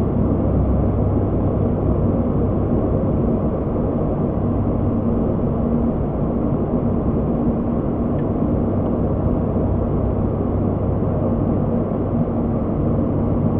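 Steady drone of an ATR 72-600's twin turboprop engines and propellers with airflow noise, heard inside the cockpit while descending on approach. A constant low hum runs under it with a second, higher hum above.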